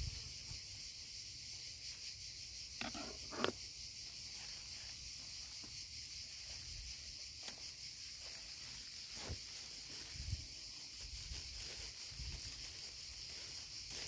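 Crickets chirping in a steady high-pitched chorus. A couple of short knocks sound about three seconds in, with a few fainter ticks later on.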